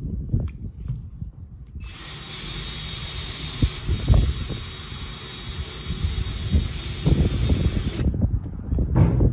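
Cordless drill running steadily for about six seconds as it drives a self-tapping screw into the bus's metal roof, then stopping abruptly. Wind buffets the microphone throughout, and there is a sharp click near the end.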